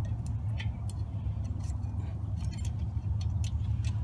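Light metallic clicks and clinks of a brake pad retaining clip being handled and worked into place on a disc brake caliper, scattered irregularly over a steady low rumble.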